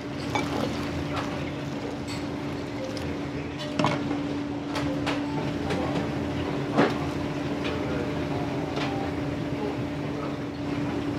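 Kitchen working noise: a steady machine hum under a low rumble, with scattered clinks and knocks of utensils and dishes, the sharpest about four and seven seconds in.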